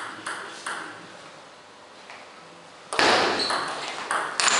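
Table tennis ball clicks. A few light taps come in the first second, then a quiet stretch, and about three seconds in a rally starts with sharp clicks of the ball on bats and table over louder hall noise.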